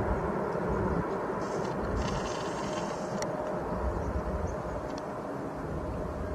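Jet engines of a twin-engine widebody airliner climbing away after takeoff: a steady low rumble that slowly fades as the plane recedes.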